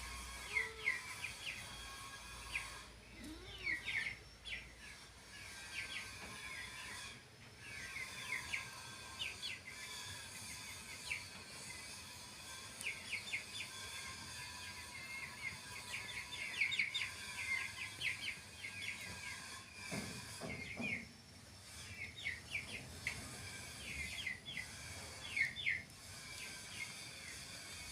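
Small birds chirping in quick repeated runs of short high notes, recurring every few seconds over a steady background hiss.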